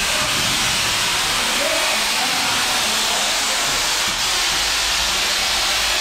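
Pressure washer lance spraying water onto a car's bodywork: a steady hiss of spray.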